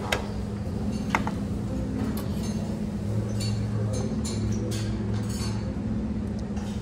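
Light clinks of a small metal ladle and a ceramic sauce dish against a china plate as soy sauce is ladled out, a few sharp taps with the clearest about a second in, over a steady low hum.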